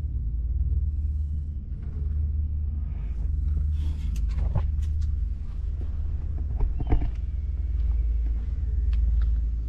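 A steady low rumble, with a few sharp clicks and knocks around the middle.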